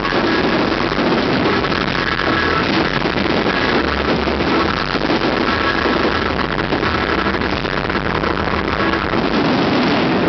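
A fireworks display with music playing over it, heard as a dense, steady, distorted wash of noise in which no single bang stands out. The recording itself failed and is of poor quality.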